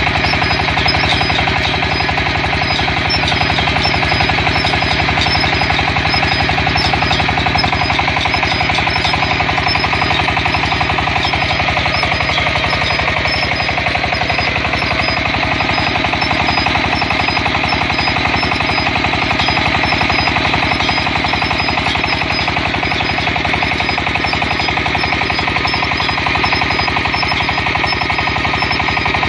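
Water well drilling rig running, a loud, steady, very rapid clatter of repeated impacts with no let-up.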